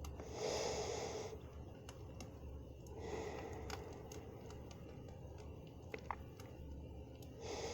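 Three slow breaths close to the microphone, each a soft rush of air lasting about a second, over a faint campfire ambience with scattered crackles and a couple of sharp pops about three-quarters of the way through.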